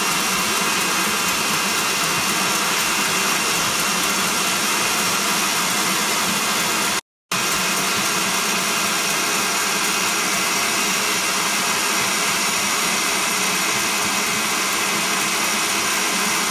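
Electric stand mixer running steadily with a high motor whine while it whips the tiramisu cream. The sound cuts out completely for a moment about seven seconds in.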